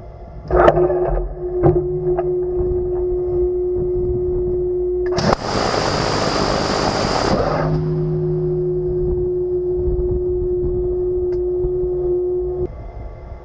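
Phalanx CIWS, a 20 mm six-barrel rotary cannon, firing a burst of about two seconds, very loud, about five seconds in. Before and after the burst its mount's motors give a steady whine that starts with a click and cuts off shortly before the end.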